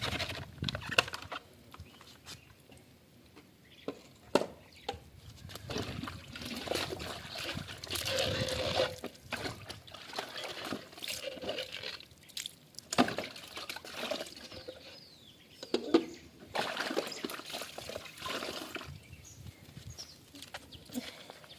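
Water sloshing, pouring and trickling as plastic vacuum cleaner parts are rinsed by hand, with a few sharp knocks of the plastic pieces.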